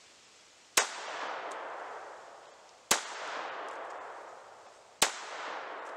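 Beretta Model 81 pistol in 7.65 mm (.32 Auto) firing three single shots about two seconds apart. Each shot is followed by a long echo that fades out.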